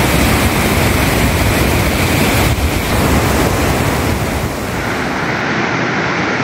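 Floodwater rushing over a full dam's spillway, a steady loud rush of water. About five seconds in it changes to water surging out through a barrage's open sluice gates, slightly quieter and duller.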